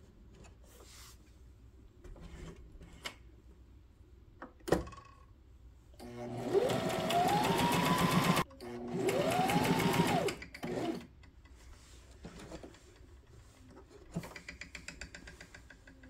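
Brother SM2700 sewing machine sewing a test row of its pattern-10 stitch in two short runs, about six and nine seconds in. The motor whine rises in pitch as it speeds up over the rapid needle strokes, then drops away as it slows. One sharp click comes a little before the first run.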